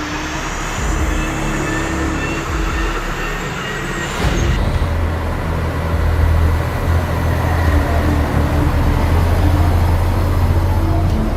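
Heavy engines running steadily, like diesel machinery or trucks at work. About four seconds in, the sound changes abruptly to a louder, deeper engine drone.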